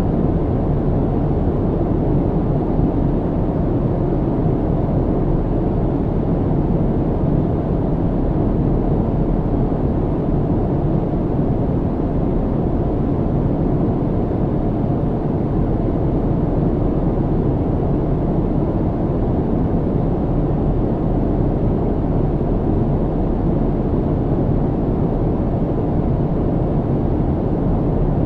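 Aircraft cabin noise: a steady, even low drone and rumbling hiss that does not change, heaviest in the low end with little treble.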